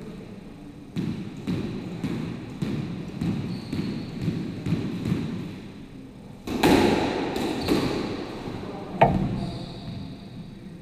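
Squash ball bounced on the wooden court floor about twice a second. Then the serve and a short rally follow: racket strikes and the ball smacking off the walls in the hollow, echoing court, with the sharpest crack about nine seconds in.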